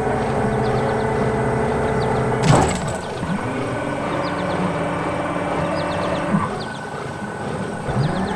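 Heavy diesel machinery running steadily, its engine note shifting, with a sudden loud jolt about two and a half seconds in and smaller ones later.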